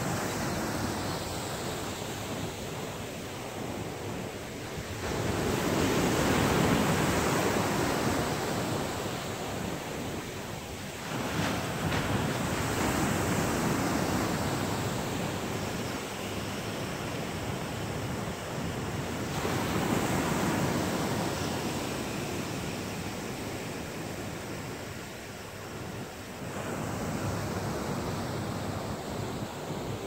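Ocean surf: waves breaking and washing in, the rush swelling about every seven seconds.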